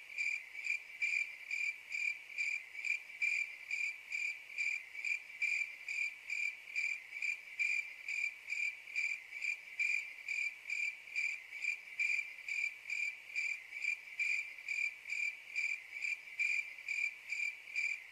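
Cricket-like chirping: a high chirp at one steady pitch, repeating evenly at about three chirps a second.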